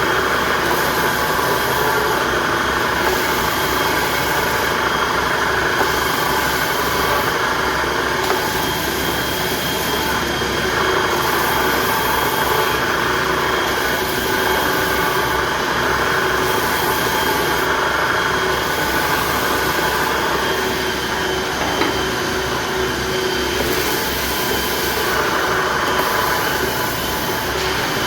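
An electric woodworking power tool's motor running steadily and loudly, with a high hiss that rises and falls every second or two.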